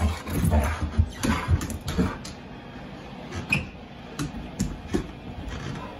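A dog jumping up and scuffling against a person, with thumps in the first two seconds, then scattered light clicks of its claws on a hardwood floor.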